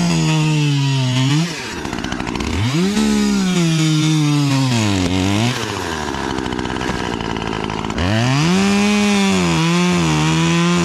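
Two-stroke chainsaw cutting a dead tree limb: three bursts at full throttle, the pitch sagging as the chain bites into the wood and rising again. It drops back to a quieter idle between cuts, about 1.5 s and 5.5 s in.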